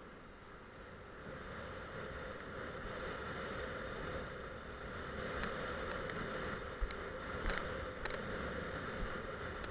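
Steady rushing of wind and water as a kiteboard skims fast over choppy sea, picked up by a body-mounted action camera; it grows louder over the first couple of seconds. A few sharp ticks come in the second half, like spray or chop striking the camera.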